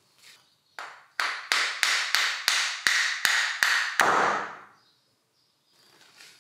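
A hammer strikes metal in about ten quick blows, roughly three a second, each ringing briefly and the last ringing longest: knocking to loosen an old drill chuck from its spindle.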